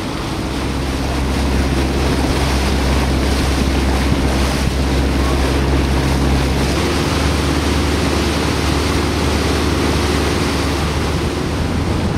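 Small motorboat under way at speed: a steady engine drone under the hiss of spray and wake, with wind on the microphone. The engine note changes about seven seconds in.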